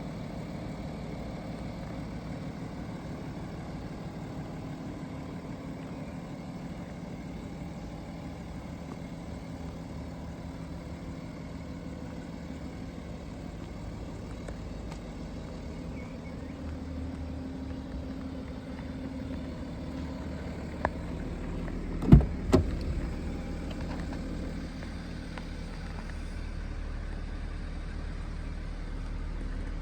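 BMW 335d's 3.0-litre straight-six diesel engine idling steadily. Two sharp thumps come about two-thirds of the way through.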